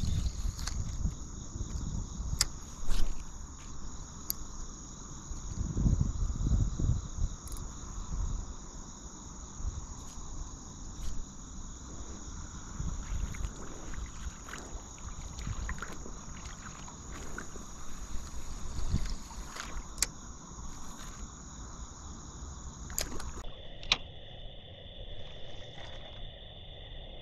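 Outdoor riverside ambience: wind rumbling on the microphone, loudest at the start and again around six seconds in, over a steady high insect song, with scattered light clicks. Near the end the insect song changes pitch.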